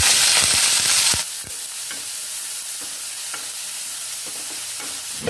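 Chopped onion, shallots and aromatics sizzling in hot oil in a pan while being stirred and sautéed, with a few light clicks. The loud sizzle drops suddenly to a softer one just over a second in.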